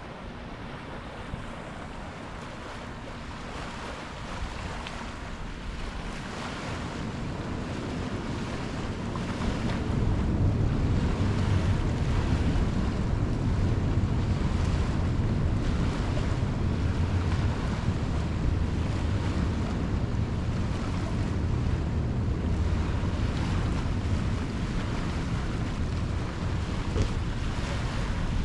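Ocean waves washing against the shore, with wind buffeting the GoPro's microphone as a low rumble. The wind gets louder about a third of the way in and stays strong.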